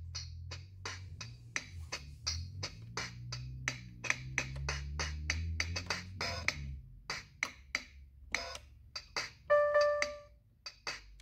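A toy electronic keyboard's preset rhythm playing a drum-machine beat, regular percussion hits with a bass line under them, through its small built-in speaker. The bass line stops about two-thirds through while the drum hits go on, and a short held electronic note sounds near the end.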